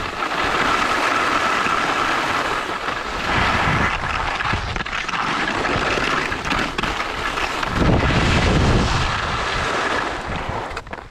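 Wind rushing over the microphone during a downhill ski run, with skis hissing and scraping over firm groomed snow. Two heavier gusts of low buffeting, about three seconds in and about eight seconds in; the rush dies down just before the end as the skier slows.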